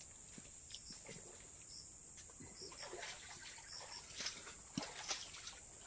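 Faint steady high-pitched drone of forest insects, with a few soft knocks about four to five seconds in.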